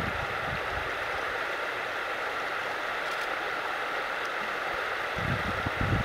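Steady rush of running stream water. A few low thumps come in near the end.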